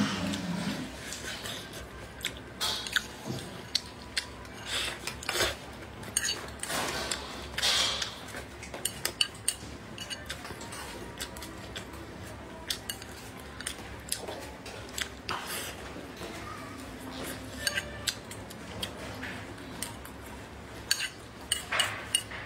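Chopsticks tapping and scraping against a ceramic rice bowl in irregular light clicks, with close-up chewing between them.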